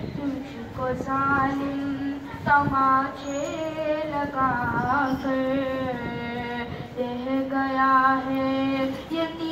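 A male reciter's solo voice singing a marsiya, a mournful Urdu elegy, in long held, ornamented lines with brief breaths between phrases and no instruments.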